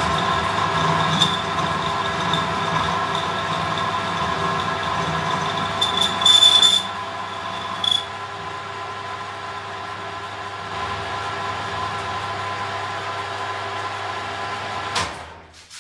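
Small metal lathe running, its headstock gears and motor whining steadily while it turns a metal pin, with brief shrill squeals from the cutting tool, the loudest about six seconds in and a shorter one near eight seconds. About fifteen seconds in there is a click and the lathe is switched off and winds down.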